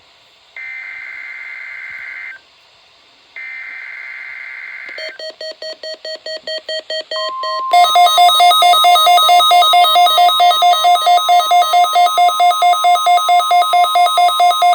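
NOAA Weather Radio weekly test: two buzzy bursts of SAME digital header tones, then a weather radio receiver's alarm beeping rapidly, growing louder and then running loud at about four beeps a second. Beneath the beeping the steady 1050 Hz warning alarm tone comes in about halfway through.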